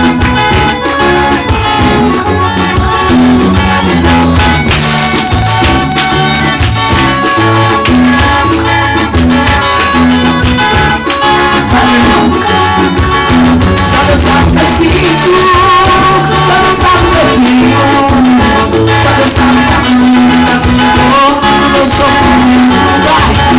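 Gospel praise band playing an upbeat dance number with a steady beat and a shaker rattling along.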